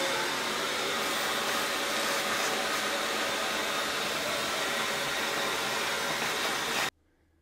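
A steady rush of blown air from an electric blower-type tool, cutting off sharply near the end.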